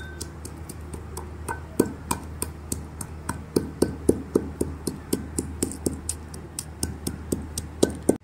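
Cardamom pods being pounded with a pestle: repeated sharp knocks with a slight clink, irregular at first and then about three a second, cracking the pods to free the seeds. A steady low hum runs underneath.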